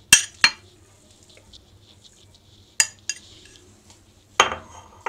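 Glass bowls clinking as boiled potato is tipped from one into the other, then a metal spoon knocking and scraping against the glass bowl as it moves the potato. The sound comes as a few sharp clinks, two near the start and two around three seconds in, with a longer scrape near the end.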